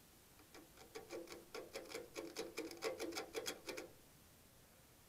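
A quick run of light metallic clicks, about four or five a second for some three seconds, as a digital caliper's jaw is worked against round steel bar stock in a lathe's three-jaw chuck to scribe a mark on it.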